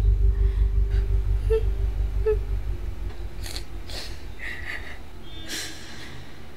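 A low sustained music drone dying away, with a few short breathy gasps over it in the second half.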